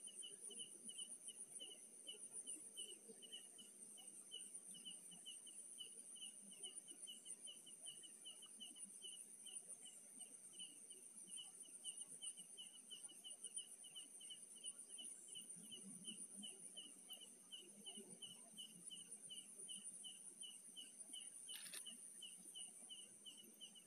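Faint night insects: a cricket chirping evenly about three times a second over a continuous high-pitched insect trill, with one short click near the end.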